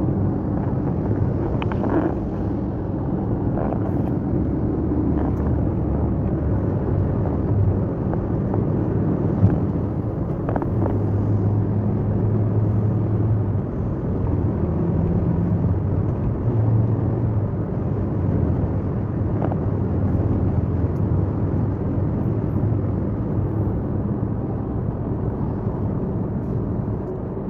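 Steady road and engine noise inside a moving car's cabin, with a low engine hum that shifts in pitch a few times.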